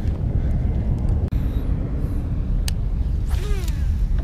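Steady low outdoor rumble of wind on the microphone and road traffic along the shore. A sharp click comes about two and a half seconds in, followed by a short falling bird call.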